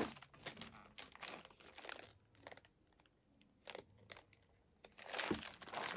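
Plastic security bag crinkling and rustling as it is handled, with a few sharp clicks. It goes quieter in the middle, then louder crinkling starts about five seconds in.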